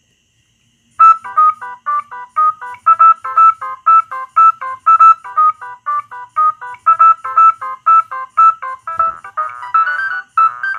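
Nokia 6010 mobile phone ringtone playing through the phone's speaker: a fast run of electronic notes, about four a second, starting about a second in. About nine seconds in there is a soft thump, and the tune thickens into fuller chords.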